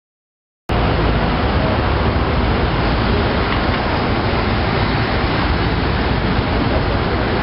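Steady traffic noise of a busy city road junction, a dense even hum of passing vehicles, cutting in abruptly under a second in.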